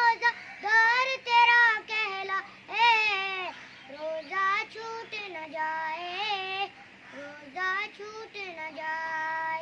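A high-pitched solo voice sings an Urdu naat for Ramadan in long melismatic phrases with wavering held notes and short pauses between them. There are no drums or instruments.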